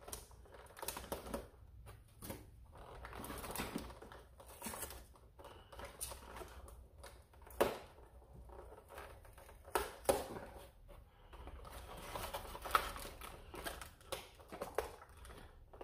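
Plastic toy blaster being handled and freed from its cardboard box packaging: scattered rustling of cardboard and plastic with light taps and clicks. A few sharper clicks stand out around the middle.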